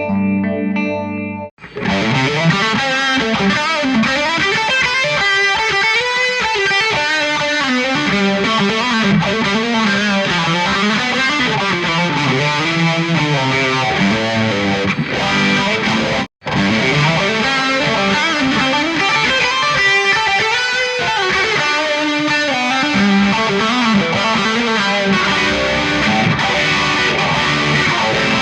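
Les Paul Custom electric guitar through overdrive, delay and reverb pedals into an amp, playing a distorted melodic lead. A short different passage stops about a second and a half in, and the playing cuts out briefly about halfway through before carrying on.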